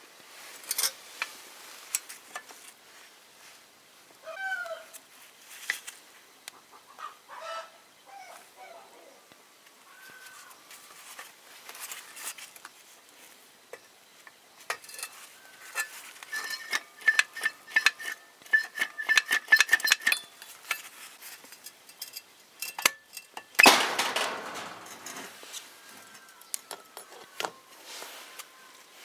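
Metal clinks, knocks and clanks as an old foot pump's steel frame and coil springs are handled and turned over. The hits come thickest in the middle, and a louder clatter comes near the end. A few short bird-like calls sound in the background.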